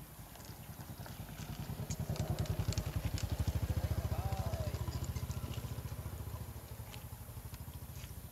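A small engine runs with a fast, even low pulse, growing louder toward the middle and then fading, as if passing by. Faint short rising-and-falling calls sound over it in the middle.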